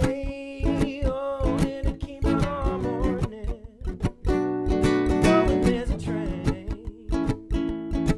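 Acoustic guitar played in an even rhythm of strokes, with a man's voice singing over it in places.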